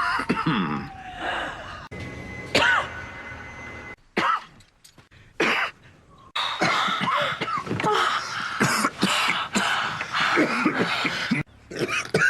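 A man coughing in repeated fits: short, rough bursts in a string of clips that cut off abruptly one into the next.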